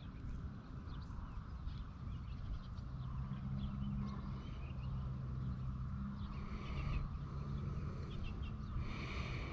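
Birds chirping now and then, with fuller calls twice in the second half, over a steady low hum.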